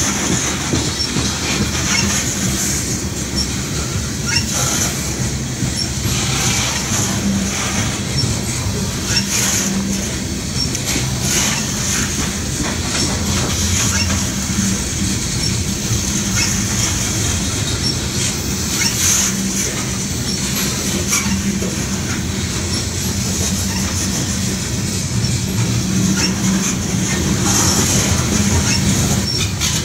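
Loaded coal hopper cars rolling past at slow speed: a steady rumble of steel wheels on the rails, with frequent clicks and knocks from the wheels and couplers. Over it runs a high wheel squeal that swells and fades, from a train slowing to a stop.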